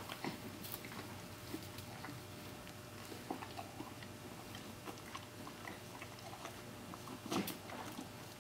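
Horse mouthing and biting at a whole apple stuck in its mouth: faint, irregular crunches, with one louder noise about seven seconds in.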